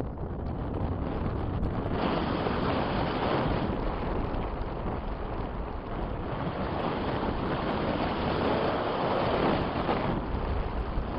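Strong wind rushing over the microphone in flight, a steady roar that swells and eases, loudest about eight to ten seconds in.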